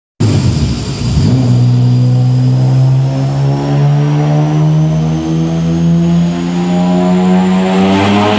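Honda J-series V6 engine running hard at a steady speed, picking up revs near the end, with a faint high whine climbing slowly in pitch.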